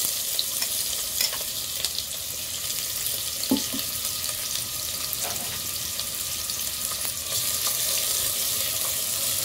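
Chopped onions and green chillies sizzling in hot oil in a pressure cooker, a steady hiss, with a wooden spatula stirring them and scraping the pan toward the end.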